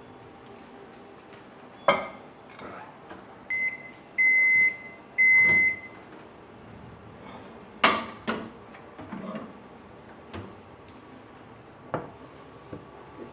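A microwave oven ends its cooking cycle. Its steady hum stops with a click about two seconds in, and three high beeps follow, one short and then two longer. A sharp clack comes a little after the middle, followed by a few lighter knocks.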